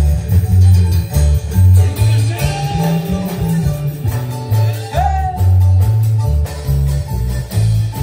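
Live band with keyboard and drum kit playing an upbeat Latin dance tune over a heavy, pulsing bass line. A short shout rises over the music about five seconds in.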